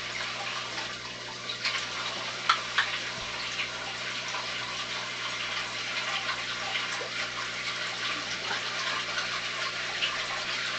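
Steady splashing and trickling of running water as an aquarium is drained and refilled during a water change, over a faint steady hum.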